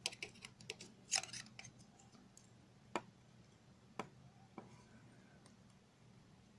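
Faint clicks and scrapes of a knife blade worked into the seam between a CPU's metal heat spreader and its board, cutting the adhesive that holds the lid on. There is a quick run of small clicks at first, then single sharper clicks about three and four seconds in.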